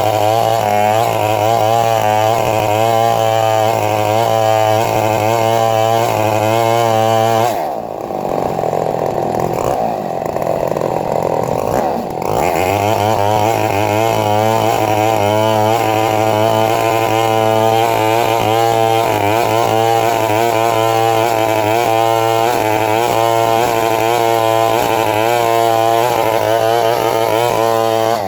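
Two-stroke chainsaw running at high revs while cutting into a coconut palm trunk. Its note wavers under load, sags and dulls for a few seconds about eight seconds in, then climbs back to full revs.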